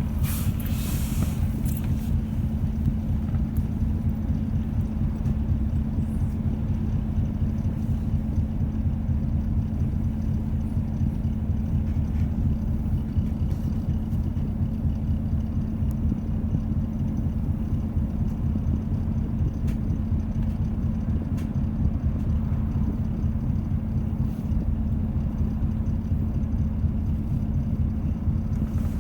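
A city bus's diesel engine idles steadily, heard from inside the cabin while the bus holds at a stop. There is a brief hiss about a second in.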